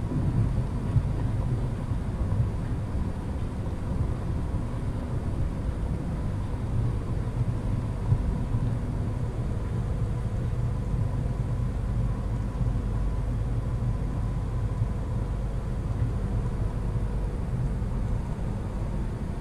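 Steady low rumble with a faint, even hum above it, and a couple of brief bumps, about a second in and about eight seconds in.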